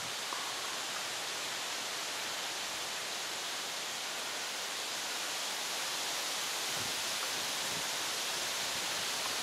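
Steady, even hiss of outdoor ambience with no distinct events.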